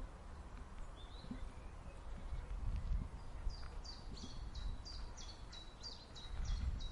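Common chiffchaff singing its chiff-chaff song: a run of about a dozen clipped notes alternating between a higher and a lower pitch, about three a second, starting about three and a half seconds in, with one short chirp earlier. A low background rumble runs underneath and grows louder near the end.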